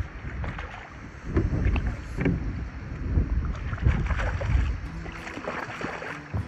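A big hooked fish thrashing and splashing at the surface beside a canoe, in irregular splashy bursts, with wind rumbling on the microphone.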